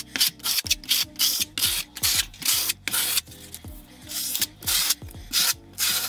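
Stainless steel V-notch trowel scraping and combing thinset mortar, in quick repeated strokes about three a second.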